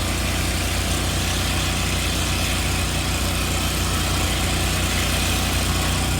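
An engine running steadily with a low, even rumble and a constant hiss over it, unchanging throughout.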